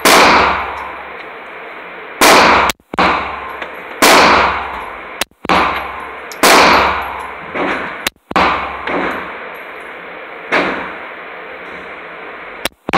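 A 9mm Glock 19 Gen4 pistol fired shot after shot at an indoor range, about eight shots, one every second or two. Each shot echoes briefly off the range walls, and some shots are louder than others.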